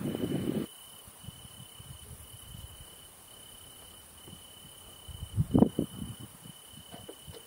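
A cricket trilling on one high steady note, broken by short gaps. Low rumbling bursts cut in briefly at the start and again about five and a half seconds in, and these are louder than the trill.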